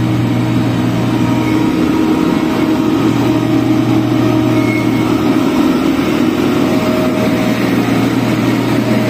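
SDLG motor grader's diesel engine running steadily, loud and close. Its low note sags briefly about two seconds in, then picks back up.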